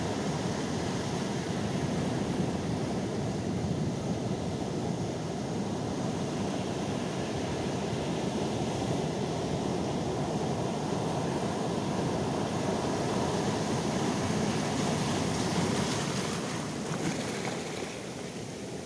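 Calm sea waves washing onto the shore in a steady, continuous surf wash, easing slightly near the end.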